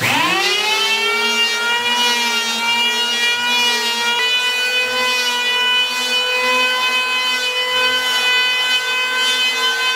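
Stanley STL630 750 W electric hand planer starting up with a quick rising whine, then running at a steady pitch as it planes the surface of a plastic cutting board.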